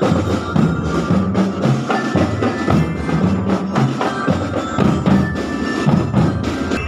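Marching drum and lyre band playing: drums beat a steady, repeating marching rhythm while bell lyres ring out the tune above it.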